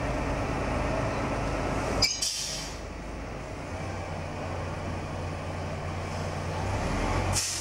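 Diesel engine of a mobile crane running steadily while lifting a load, a low even hum. There is a short rush of noise about two seconds in.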